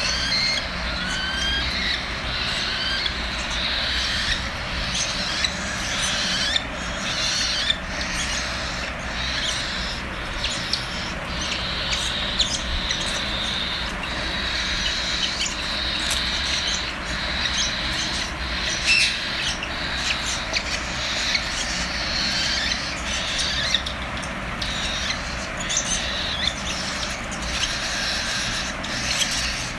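Cockatiel chicks begging for food: a continuous raspy, chirping chorus, with many short sharp clicks throughout.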